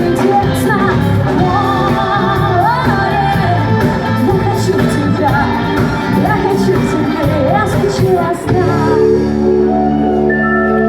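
Live pop band playing with a voice singing. About two-thirds of the way in, the drums drop out and a held chord rings on.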